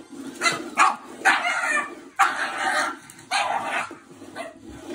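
Pug dog barking in a run of short bursts, about six in five seconds, some longer than others.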